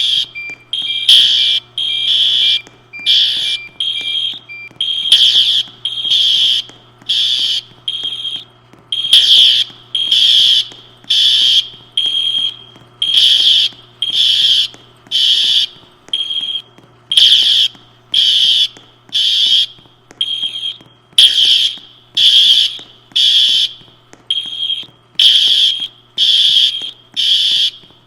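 Building fire alarm sounding an evacuation signal: a loud, high-pitched electronic horn tone pulsing on and off about once a second.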